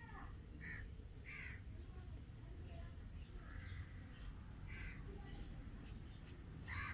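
Faint bird calls: about six short calls at uneven gaps, over a steady low hum.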